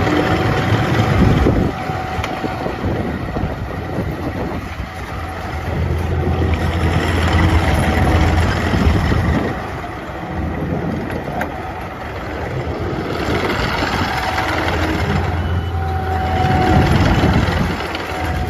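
Takeuchi TL10 compact track loader's 92 HP Kubota diesel running, swelling and easing in loudness three times as the machine is worked. A short steady high tone sounds a few times over the engine.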